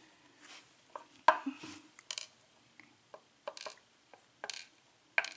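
Small metal lock parts from a disassembled Sargent 5-pin cylinder clicking and clinking as fingers pick them up and set them down on a tray. One sharp click about a second in is the loudest, followed by a handful of lighter, irregular clicks.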